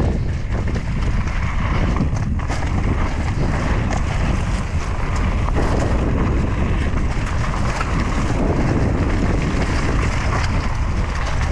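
Wind rushing over the microphone of a mountain biker's camera, mixed with the steady rumble of tyres on a dirt trail and a few short rattling clicks from the bike.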